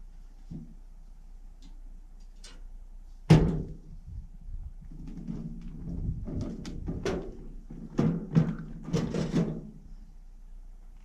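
Hard cement being knocked off a stone wall: one loud sharp blow about three seconds in, then a run of irregular knocks and scrapes over the middle seconds.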